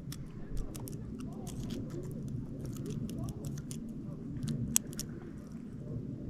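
Small, irregular metal clicks of a pick and tension wrench working the pins of an Abus Rock padlock with spool pins, one sharper click about two-thirds of the way in, over a low outdoor rumble.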